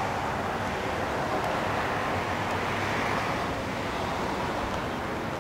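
A steady outdoor rushing noise, swelling a little midway and easing off near the end.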